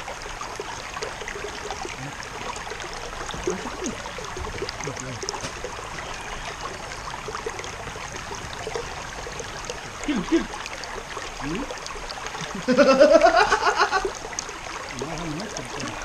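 Steady rush of running stream water, with faint voices in the background. About 13 seconds in, a person calls out loudly, the voice rising in pitch.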